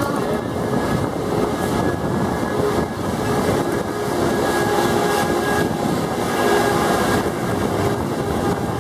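Open-sided tram running along a road: a steady rumble of its motor and tyres with wind noise, and a faint steady whine that is strongest in the middle.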